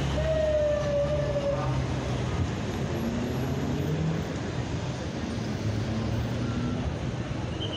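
Busy city street traffic: a steady hum of idling and slowly moving vehicle engines. A single pitched tone, a horn or siren, sounds for about the first second and a half, falling slightly in pitch.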